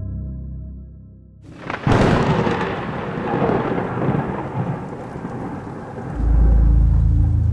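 A thunderclap cracks suddenly about two seconds in and rolls off over several seconds against the hiss of rain. Before it, sustained synth tones fade out. Near the end a loud, deep low drone starts.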